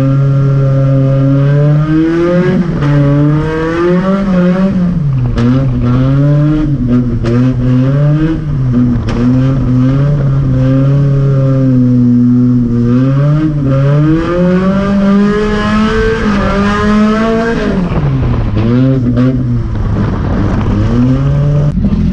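Volvo drift car's engine revving up and down under throttle while sliding on a wet track, heard from inside the windowless cabin. The pitch rises and falls over and over as the throttle is worked, with a few sharp dips in revs.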